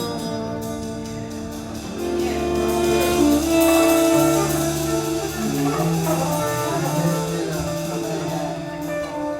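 Instrumental music with held notes, growing louder about two seconds in.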